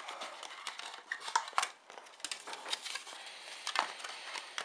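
Plastic headset packaging being handled: irregular clicks, taps and crinkles as the tray and clear box are turned and pressed.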